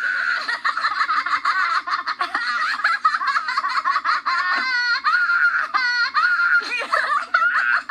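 High-pitched cartoon giggling from several voices at once, overlapping and wavering in pitch.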